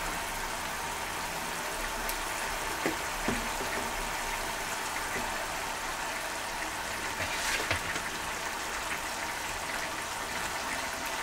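Fish gravy simmering in a frying pan over a gas burner: a steady bubbling hiss, with a few soft knocks as fried fish are laid into the pan.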